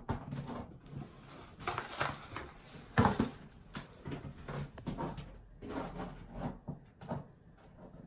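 Handling noise from products and packaging being turned over and rustled, with scattered light knocks and one sharp knock about three seconds in.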